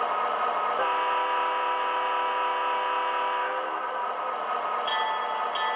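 MTH model GP40 diesel locomotive's onboard sound system, playing a steady diesel engine sound. About a second in comes a multi-note horn blast of about three seconds. Near the end the bell starts ringing, about once every 0.7 seconds.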